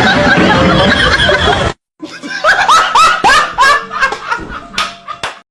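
A dense, noisy sound cuts off abruptly under two seconds in; after a brief silence, a person laughs in a rapid run of short snickering bursts, each rising in pitch.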